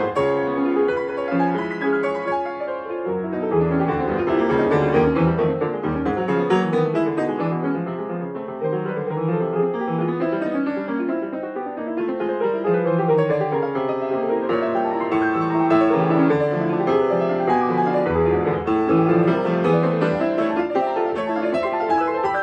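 Grand piano played solo: classical music in quick, continuous notes that sweep up and down in runs.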